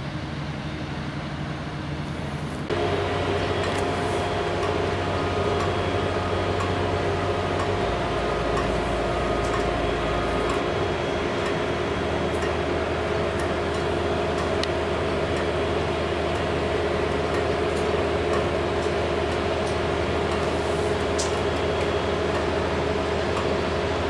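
Steady mechanical hum of running machinery, several steady tones over a rushing background, that gets louder about three seconds in and shifts in its lowest tones a few seconds later.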